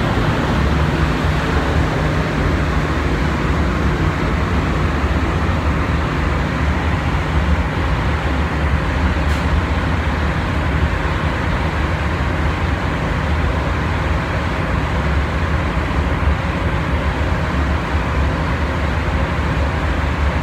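Steady roar of a paint spray booth's ventilation fans running, with a low hum underneath and no change in level.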